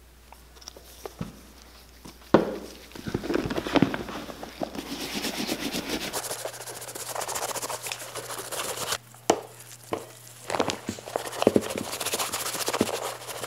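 Gloved hand rubbing leather conditioner into a cowboy boot's leather upper: a continuous scratchy rubbing that starts about two seconds in, broken by several sharp knocks as the boot is handled.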